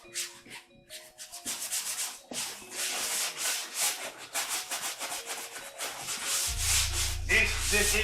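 Hand sanding of dried joint compound on a wall patch: quick, repeated back-and-forth scraping strokes. A low steady hum comes in about six and a half seconds in.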